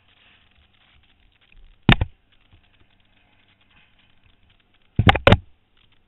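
Three short, sharp knocks: one about two seconds in and a quick pair near the end, over a faint background.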